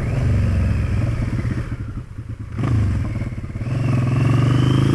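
Motorcycle engine running under the rider, with wind noise on the helmet microphone. The throttle eases off for a moment through a left turn about two seconds in, then the engine picks up again and its pitch rises as it accelerates away.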